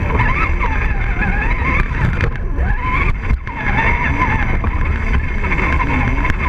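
Motor and geartrain of an Axial RC rock crawler whining as it climbs over sandstone, heard from a camera mounted on the crawler; the pitch wanders up and down with the throttle and drops out briefly about three seconds in. A steady low rumble runs beneath it.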